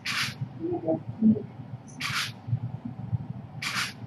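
Camera shutter sound going off four times, short crisp bursts roughly every one and a half to two seconds, the third one doubled.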